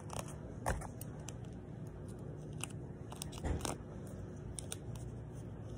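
Quiet close-up handling noises of hands working a small object: scattered small clicks and soft crackles, with a brief louder crackly rustle about three and a half seconds in.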